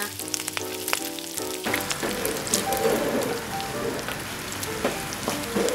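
Background music with a few sharp taps, then about two seconds in a loud, dense sizzle starts: diced pork, tofu and vegetables stir-frying in a hot wok, with a wooden spatula clicking and scraping against the pan.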